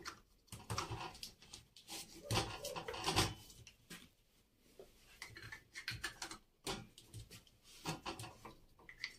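Irregular light plastic clicks and knocks as plastic caps are pressed onto the post tops of a plastic basket organizer and the plastic baskets are handled. The loudest knocks come a little past two and three seconds in.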